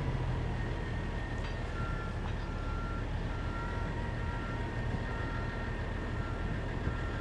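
The McDonnell Douglas MD-11's three jet engines give a steady low rumble as it touches down. From about a second and a half in, a vehicle's reversing alarm beeps steadily, about once a second.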